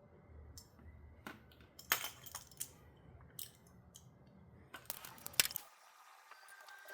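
Scattered clinks and clicks of small metal parts and hand tools being picked up and set down, several sharp separate strikes over about five seconds.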